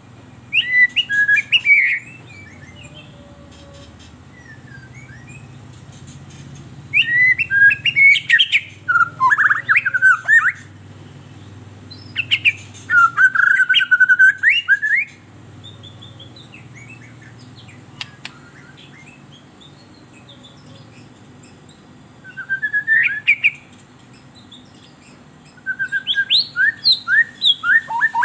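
White-rumped shama (murai batu) singing in an agitated, aroused state: five phrases of rapid, sweeping whistled notes, separated by pauses of a few seconds, over a low steady hum.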